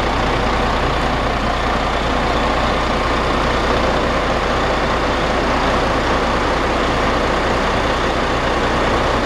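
Roman 19.410 truck's Caterpillar diesel engine idling steadily.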